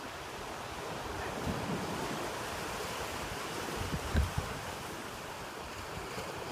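Ocean surf washing steadily on the shore, with wind buffeting the microphone; a brief low gust about four seconds in.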